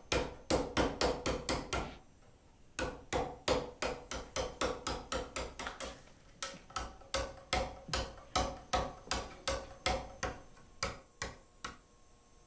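Hand hammer striking a steel chisel cutting into a stone gravestone slab: steady ringing taps, about three a second, with a short pause about two seconds in. The taps stop shortly before the end.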